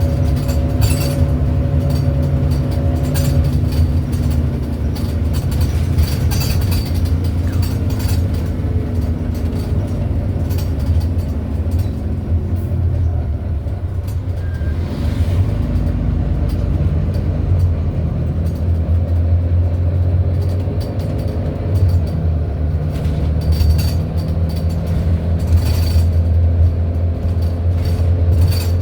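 A Volvo B9TL bus's diesel engine heard from inside the bus, its drone falling in pitch about halfway through and then rising again as it pulls away. Short high squeaks come and go throughout, the weird squeaking from somewhere on the bus.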